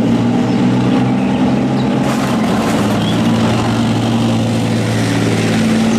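Leopard 2 main battle tank on the move: its V12 diesel engine runs with a steady drone over the noise of its tracks.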